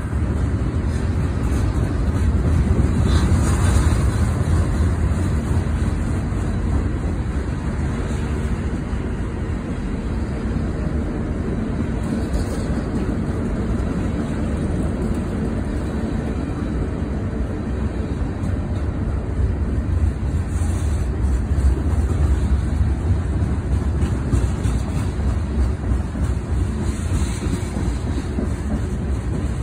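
Freight train of boxcars and covered hoppers rolling past steadily: a continuous low rumble of steel wheels on the rails.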